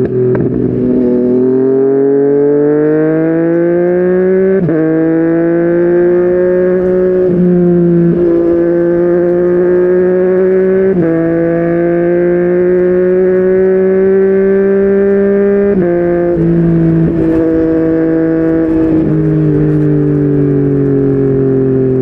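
Yamaha MT-09's inline three-cylinder engine through a Yoshimura R55 slip-on exhaust, pulling under load. Its pitch climbs and then changes abruptly at several gear changes.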